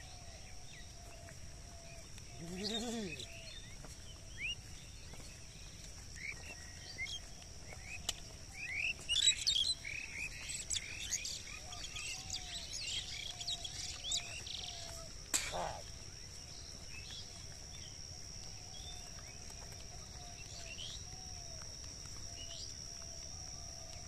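Rural field ambience: birds chirping, busiest and loudest between about eight and fourteen seconds in, over a steady high-pitched insect drone. A short call with a rising and falling pitch comes about three seconds in, and a single sharp knock a little after the middle.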